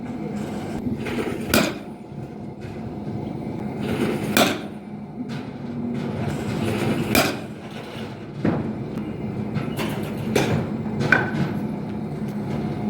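A baseball bat strikes pitched balls at a batting cage, four sharp cracks about three seconds apart, with fainter knocks in between. Steady wind noise runs underneath.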